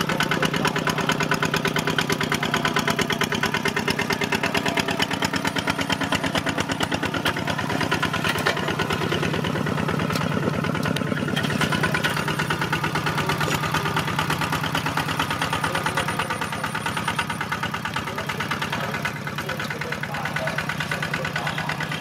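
Single-cylinder diesel engine of a two-wheel walk-behind tractor running steadily while tilling soil, with a rapid, even pulse. It eases slightly in loudness over the last few seconds.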